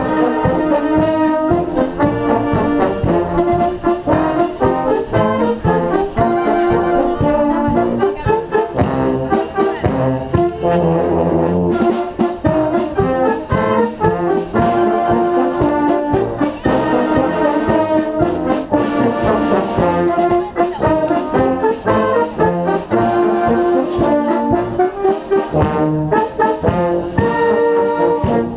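Brass band playing live: trumpets, trombones and saxophones together, with notes changing all the time.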